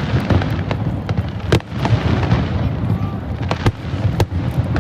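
Fireworks display: a dense, irregular run of sharp bangs and cracks over a continuous low rumble of booms.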